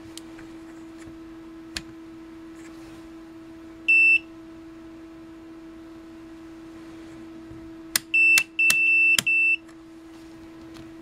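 The EEVblog 121GW multimeter's beeper gives a short high beep about four seconds in, then two or three more beeps in quick succession near the end, one held a little longer. Sharp clicks come with them as the rotary range dial and buttons are worked, over a steady low hum.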